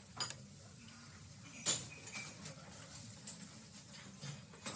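Café background noise: a low murmur of the room with scattered sharp clinks of dishes and cutlery, the loudest about a second and a half in.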